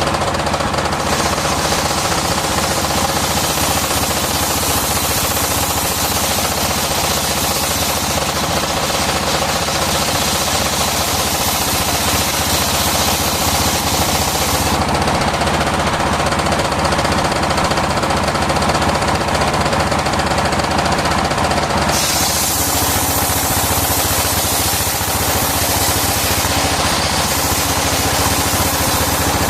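Circular sawmill running steadily, its machinery rattling with a loud high hiss. The hiss drops away about halfway through and comes back a few seconds later.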